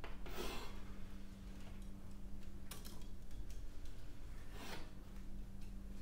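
A low, steady electrical hum, with two short rustling swishes, one about half a second in and one near the end, and a few faint clicks.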